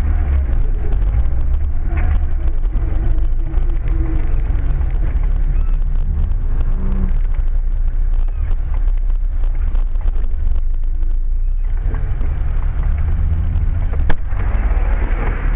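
Dashcam recording from inside a car's cabin: the steady low rumble of the car driving slowly along a street. A single sharp click comes about 14 seconds in.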